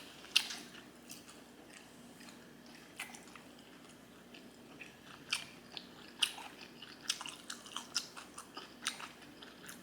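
A person chewing sushi rolls close to the microphone, with irregular wet mouth clicks and smacks.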